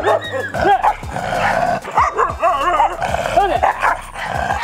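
Kombai dog barking repeatedly, two or three barks a second, in an aggressive display at another dog.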